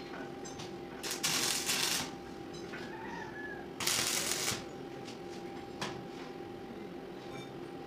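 Electric arc welding on an iron window grill: two short bursts of arc crackle and sizzle, the first about a second long and the second a little shorter, as bars are tack-welded to the frame. A steady hum and a few light clicks lie underneath.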